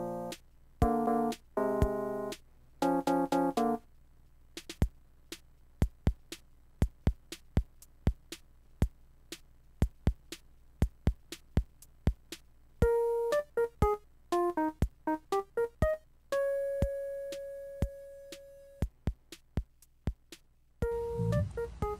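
Background instrumental music: a few seconds of chords, then a steady beat of sharp clicks, with short melody notes and one long held note in the second half and a fuller passage near the end.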